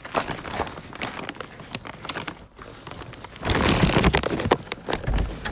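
Handling noise from a phone being moved and rubbed: rustling, scraping and scattered clicks on its microphone. It gets louder and fuller about three and a half seconds in.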